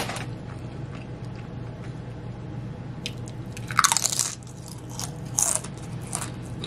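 Tortilla chip bitten and chewed, a few crisp crunches with the loudest about four seconds in and another a second and a half later.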